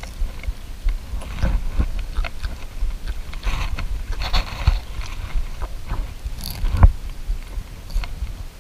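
Close handling noise in a small boat: a run of clicks, scrapes and rustles, with a louder knock about seven seconds in.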